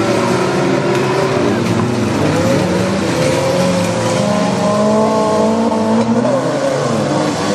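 Several small hatchback autocross race cars running together, their engines revving, each note rising and falling and overlapping the others.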